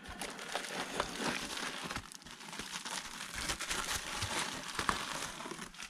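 Packaging crinkling and rustling in a steady run of small crackles as a second-hand graphics card is unwrapped by hand.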